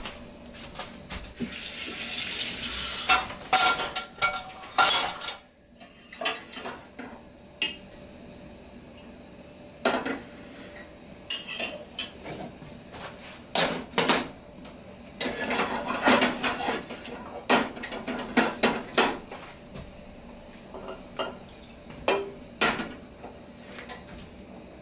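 Kitchen clatter: metal pots, pans and utensils knocking and scraping in scattered clanks, with two longer spells of hissing, rushing noise, one about two seconds in and one from about fifteen to nineteen seconds.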